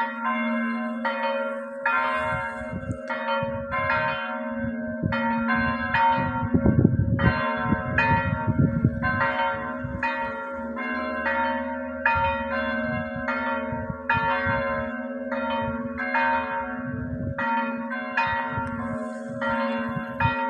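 Catholic church bells ringing: several bells strike in a steady rhythm about twice a second, over their own lasting hum. A low rumble joins about a third of the way in for a few seconds.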